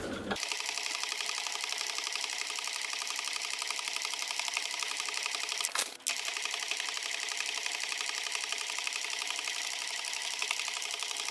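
W6 N 8000 Exklusive computerised sewing machine running forward on a straight stitch, a fast, even stitching rhythm through layered jacket fabric. It is briefly interrupted by a click and a short stop near the middle.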